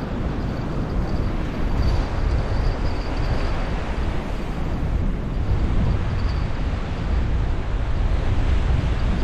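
Wind buffeting the microphone over the steady wash of surf on the rocks, a rough, uneven rumble.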